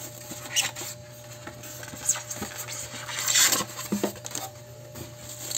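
Plastic wrapping crinkling and a styrofoam packing insert rubbing as a new juicer is pulled out of its packaging, in irregular handling rustles, the longest and loudest about three and a half seconds in.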